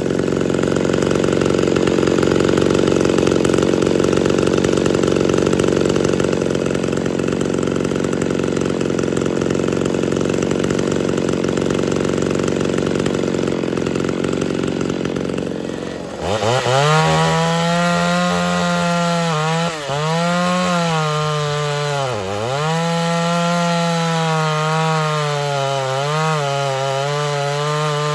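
Two-stroke XL Auto chainsaw running. For the first part it gives a rough, even noise; about two-thirds of the way in it revs up sharply and saws through a log, its high pitch dipping and recovering several times as the chain loads in the cut.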